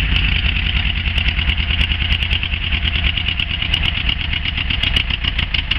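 1976 Volkswagen camper's 2.0-litre fuel-injected engine running with a rapid, even low putter and light ticking. The engine will not settle to a steady idle and tends to stall, for a cause the owner does not know.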